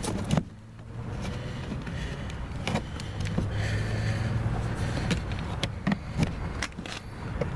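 Scattered clicks and knocks of plastic door trim being worked loose by hand, a stubborn piece that resists, over a steady low hum.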